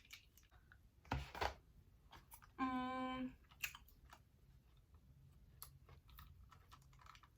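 Food containers and packaging being handled while a salad is put together: two loud knocks about a second in, a brief steady pitched squeak or hum a little before the middle, and light clicks and rustles throughout.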